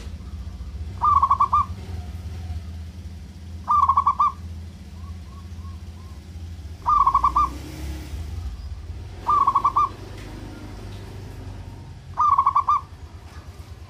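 Zebra dove (perkutut) cooing: five short trilled coos about every two to three seconds, each a quick run of notes at much the same pitch, with a few soft short notes between two of them. A steady low hum runs underneath.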